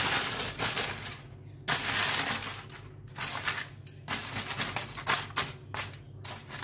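Baking paper and aluminium foil crinkling and rustling in irregular bursts as they are spread and tucked over a roasting pan, with short pauses between handlings.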